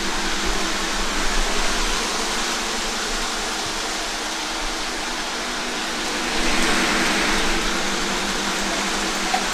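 Battery-powered Lionel Polar Express model train running on its track, a steady motor whir with rattle that grows louder about six seconds in.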